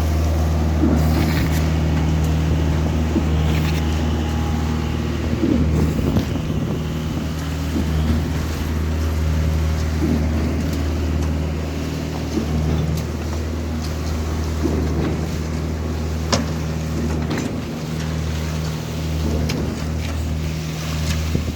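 Diesel engine of an SLM 4600 concrete machine running steadily, a constant low drone, with a few scattered metallic clicks and knocks.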